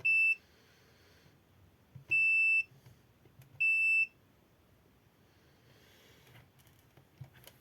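Multimeter in continuity mode beeping three times, short steady high-pitched beeps, each about half a second long.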